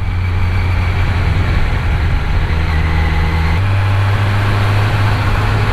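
Kawasaki Z900's inline-four engine running steadily while the motorcycle is ridden. Its note shifts about three and a half seconds in.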